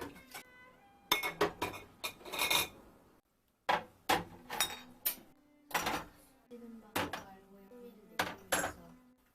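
Ceramic dishes and cutlery clinking as they are handled and set down, in several separate bursts of clinks with short ringing.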